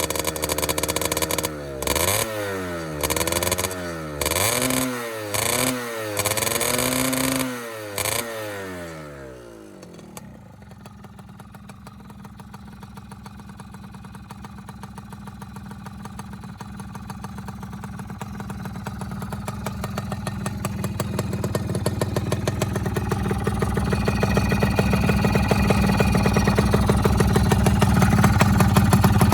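Modified Yamaha F1ZR two-stroke engine revved in a run of quick, sharp blips, its pitch rising and falling each time. After about nine seconds it drops back to a steady, quieter idle that grows gradually louder toward the end.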